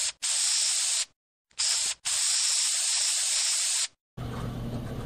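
Aerosol spray-paint can spraying in hissing bursts that start and stop sharply: a short puff, a spray of about a second, a brief burst, then a long spray of nearly two seconds that stops a little before four seconds in.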